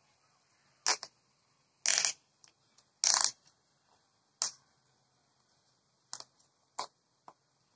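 Inline skate buckles and straps being fastened by hand: about seven short rasps and clicks, the two longest and loudest about two and three seconds in.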